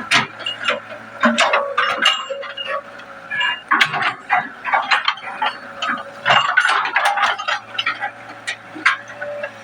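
Excavator at work, with irregular clanks, knocks and cracks, several a second, over a low steady engine drone.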